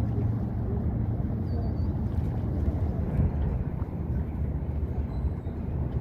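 Steady low rumble of a running engine, with a brief high three-note chirp about one and a half seconds in.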